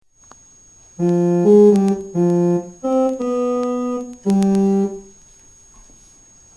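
A short electronic keyboard tune of about seven held notes, each starting and stopping cleanly. It is played over a faint steady high-pitched whine.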